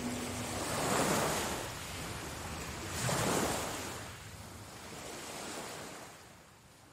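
Rushing noise in two slow swells about two seconds apart, each rising and ebbing, then fading out toward silence; a low held tone dies away in the first half-second.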